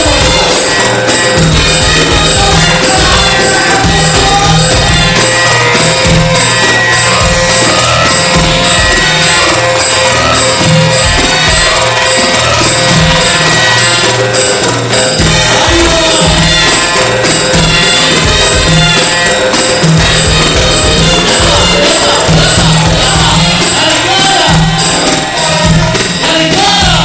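Loud Egyptian mahraganat (electro-shaabi) dance music with a steady, driving electronic beat and held synth tones.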